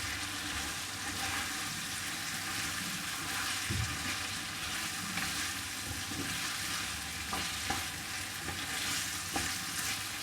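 Fried chicken and bell peppers sizzling in a thick sauce in a pan while being stirred, with a few light knocks of the spoon against the pan.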